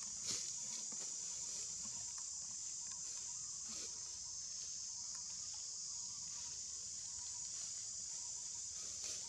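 A steady, high-pitched insect chorus drones on without a break, with a few faint ticks, the clearest about a third of a second in.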